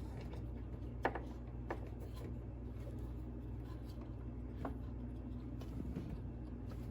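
A few light clicks and taps as a new ignition coil pack is handled and fitted into the spark plug well of a Ford 5.4 litre engine, over a steady low hum. The engine is not running.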